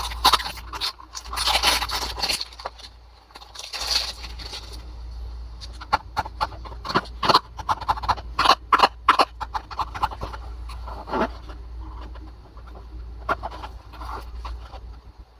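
Hands handling a toy car's cardboard box and plastic packaging: scraping and rustling for the first few seconds, then a quick run of sharp clicks and taps, with a few more scattered taps near the end, over a steady low hum.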